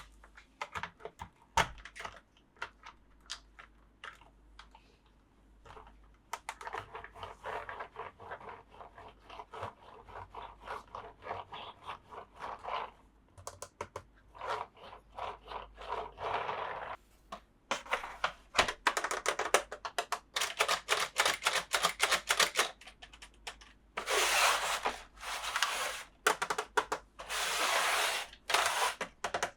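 Hands unboxing a plastic toy set: scattered clicks and taps, then from about seven seconds in repeated bouts of crinkling, tearing and scraping packaging, loudest near the end.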